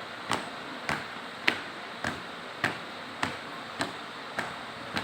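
A steady marching beat of sharp knocks, a little under two a second, evenly spaced.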